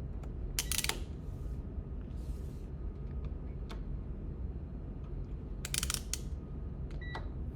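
Clicking and rattling from handling a multimeter: its rotary selector knob clicking through its settings and its test leads being plugged in, in two short clusters about half a second in and near six seconds, with scattered single clicks. A steady low hum runs underneath.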